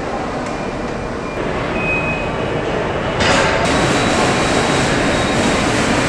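Car assembly line noise: a steady mechanical hum and rumble of machinery. A broad hiss joins about three seconds in and makes it louder.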